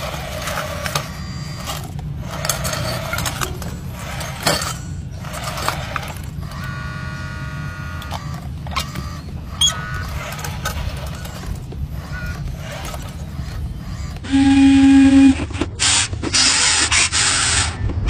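Small electric motor and gears of a toy wheel loader whirring as it drives and pushes dirt, with clicks and scrapes of stones and soil. About fourteen seconds in, the sound changes to a short loud buzzing tone, then a rushing noise.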